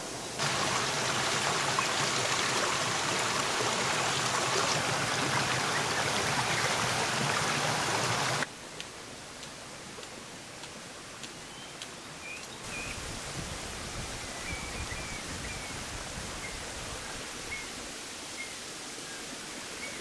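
Rushing water, a loud steady hiss that starts suddenly and cuts off abruptly about eight seconds in. After that comes quieter outdoor ambience with a few faint snaps and birds chirping.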